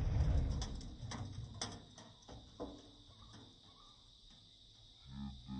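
Aftermath of a firecracker blast inside a tin can: the rumble of the bang dies away over the first second while the blown-apart can and debris land with several sharp knocks, then it falls quiet. A low pitched, voice-like sound begins near the end.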